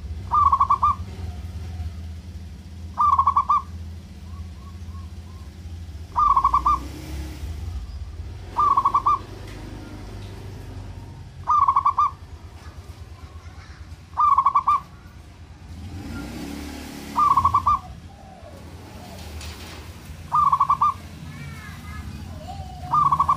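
Zebra dove (perkutut) singing: a short, trilled coo repeated nine times, about every two and a half to three seconds, over a steady low background hum.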